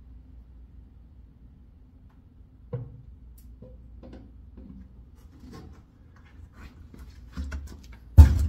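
A 5-gallon plastic oil bucket being held up and emptied into a diesel truck's oil fill: faint creaks and small clicks over a low, steady hum. A single loud thump comes just before the end.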